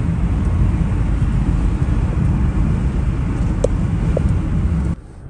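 Steady low rumble of road and engine noise inside a car cabin at motorway speed, cutting off suddenly near the end.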